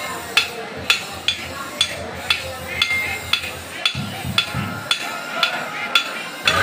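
Regular sharp knocking, about two strikes a second, each with a brief ring.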